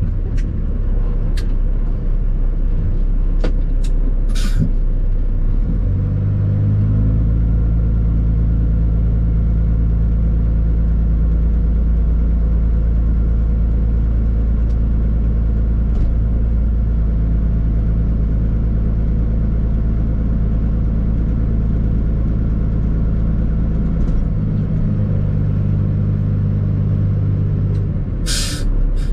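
Tri-axle dump truck's diesel engine held at raised revs to drive the hydraulic hoist while the dump box tips, steady from about six seconds in and easing back a few seconds before the end. Two short air hisses, one about four seconds in and one near the end.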